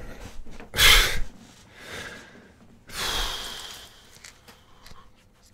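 A man blowing out a sharp, breathy exhale about a second in, then a longer sigh around three seconds, a speechless breath of amazement. A few faint clicks and rustles follow near the end.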